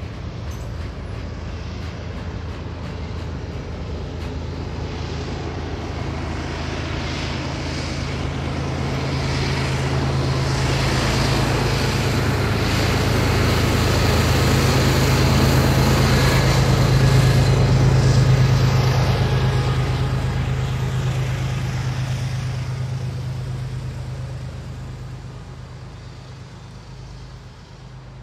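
Rear distributed-power GE ES44AC diesel locomotives of a freight train passing under power: a steady low engine drone with wheel and rail noise over it. The drone swells to its peak a little past the middle and then fades as they move away.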